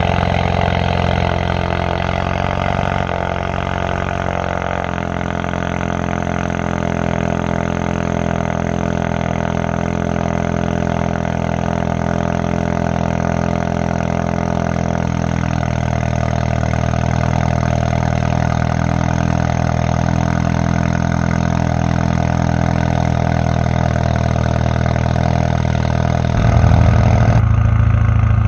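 2016 Ford Focus RS's turbocharged 2.3-litre EcoBoost four-cylinder idling steadily through a catless downpipe and muffler delete, a deep, even exhaust note. Near the end the note gets louder and lower.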